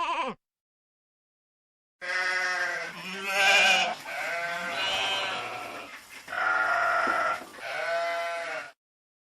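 Sheep bleating: one wavering bleat ends just after the start. After a gap of silence, a run of several bleats, some overlapping, lasts about seven seconds and cuts off suddenly.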